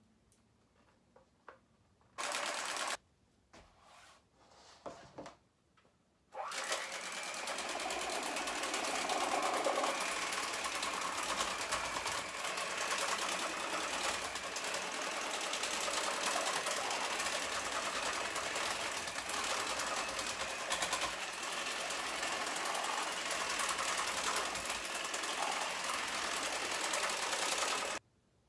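Electric hand mixer with colored pencils fixed to it, running with the pencils pressed against cardboard: a steady motor buzz with busy rattling and scratching. It runs briefly, for under a second, about two seconds in. It starts again about six seconds in and runs steadily until it cuts off suddenly near the end.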